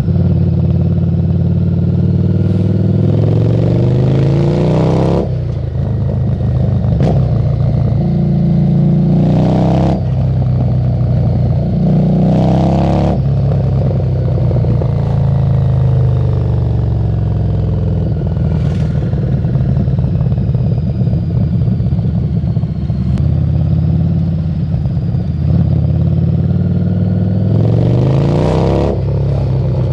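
Harley-Davidson Street 750's V-twin running loud through a Screamin' Eagle exhaust under way. The engine pitch climbs and drops again and again as the bike is worked through the gears and the throttle: several quick climbs in the first half, a steadier stretch in the middle, and more climbs near the end.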